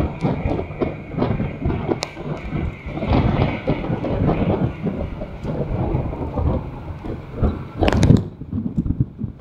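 Wind buffeting the microphone over the road rumble of a moving vehicle, in uneven gusts, with a louder gust about eight seconds in.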